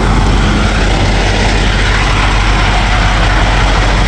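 Diesel engines of parked semi trucks idling, a steady low rumble.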